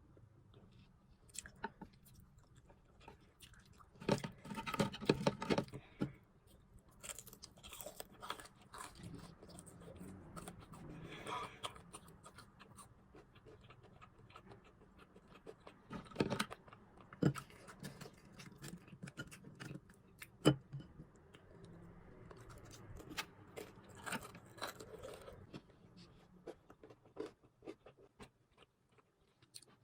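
Chewing crispy fried food, with several louder bouts of crunching and scattered small clicks between them.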